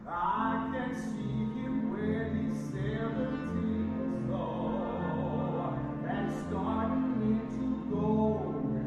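Male baritone voice singing with vibrato over orchestral accompaniment.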